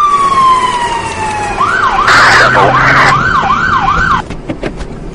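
Police car siren: a single tone sliding down, then a run of about six quick rising-and-falling yelps before it stops.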